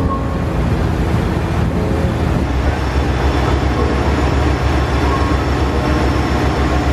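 Ferry's engine running with a steady low rumble under the rush of its churning wake.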